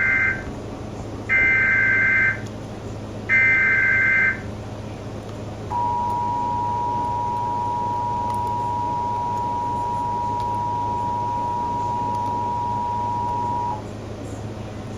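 Emergency Alert System alert tones marking the start of a new alert. Three one-second bursts of SAME digital header data screech come first. Then the two-tone EAS attention signal is held steady for about eight seconds and cuts off.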